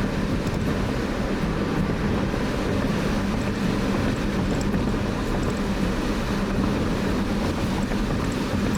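Steady road noise of a car being driven: engine, tyres and wind rushing past, heard from inside the cabin.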